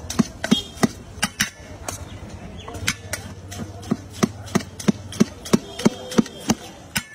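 Steel tin clanking in a steady rhythm, about three sharp knocks a second, as jhal muri is tossed and mixed inside it.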